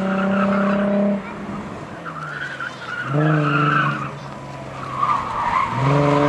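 Ford Mustang's engine running hard at steady revs, dropping away about a second in and coming back on around three seconds and again near the end, with the tyres squealing as the car corners.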